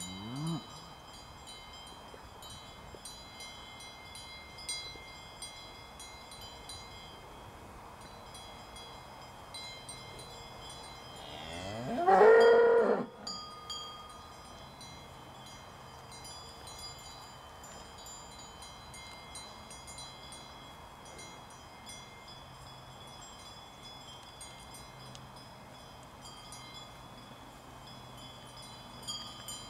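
Cowbells on grazing cows clanking and ringing irregularly throughout. One loud moo rising in pitch comes about twelve seconds in, and a short low call right at the start.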